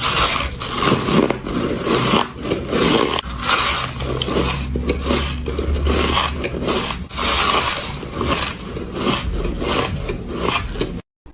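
Crushed ice being chewed close to the microphone: a continuous run of gritty, grinding crunches.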